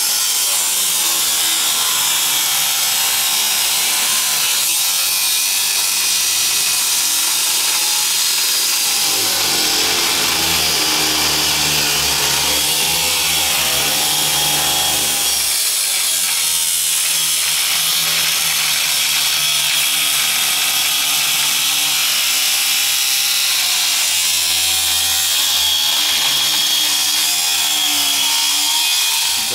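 Angle grinder working steel under load: a steady, loud abrasive hiss, with the motor's pitch wavering as it is pressed into the metal. It stops right at the end.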